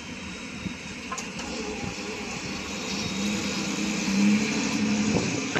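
Rumble of a freight train at a grade crossing fading after it has cleared, over a steady hiss of road noise. About three seconds in, a low steady hum from a road vehicle's engine swells and grows louder toward the end.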